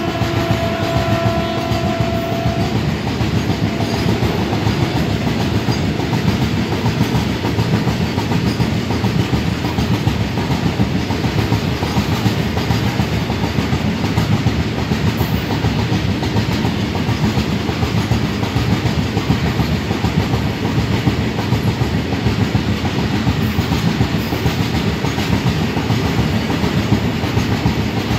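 Goods train of loaded open-top freight wagons rolling past: a steady rumble of wheels with clickety-clack over the rail joints. A train horn is held for the first two or three seconds, then stops.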